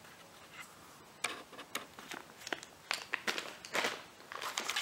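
Clear plastic parts bag crinkling and rustling in short, irregular bursts as it is handled, starting about a second in.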